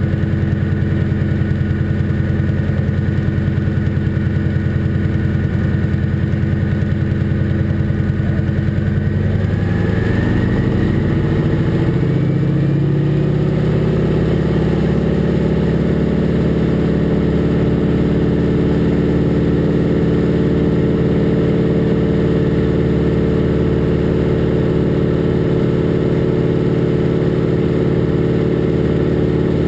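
A North American Harvard II's Pratt & Whitney R-1340 Wasp radial engine and propeller, heard from the cockpit. It runs steadily at low power, then about ten seconds in the throttle opens and the engine note rises over a few seconds to a steady takeoff-power sound as the aircraft rolls down the runway.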